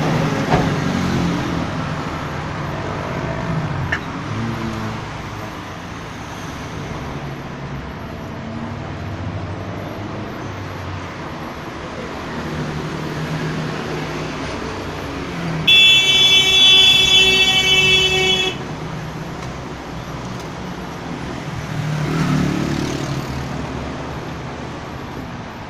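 Road traffic running steadily, with one long, steady horn blast lasting nearly three seconds a little past the middle.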